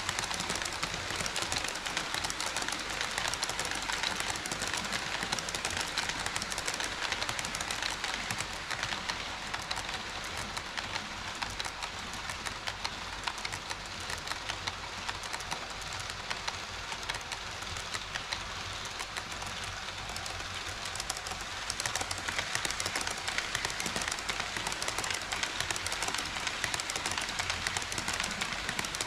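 HO scale model train running on KATO Unitrack, its wheels clicking rapidly over the rail joints in a steady clatter that eases slightly in the middle.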